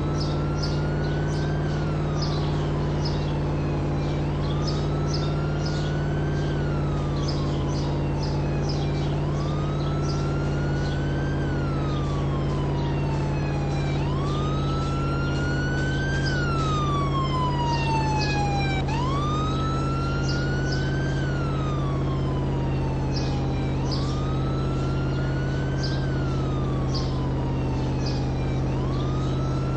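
A siren wailing over and over, each cycle rising quickly and then falling more slowly, about once every five seconds, over a steady low hum.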